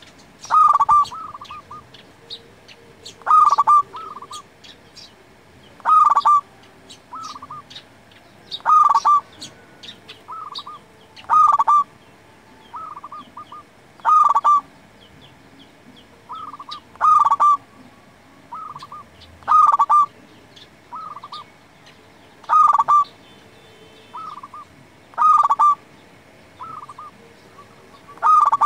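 Zebra dove (perkutut) singing its rolling coo: a loud phrase about every two and a half to three seconds, with softer coos in between.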